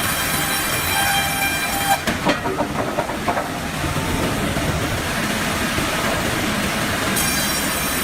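Sawmill machinery running as a saw blade cuts an oak log into boards, a loud steady mechanical noise. A high whine drops away about two seconds in and comes back near the end, and a quick run of clanks and knocks follows right after it drops.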